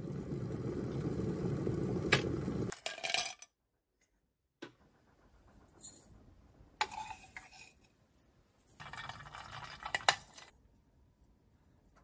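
A low rushing noise with a few sharp clinks for the first three seconds, then a short pause. Then green tea being made: a plastic measuring scoop tapping against a ceramic teapot, clinks of china, and liquid splashing as it is poured.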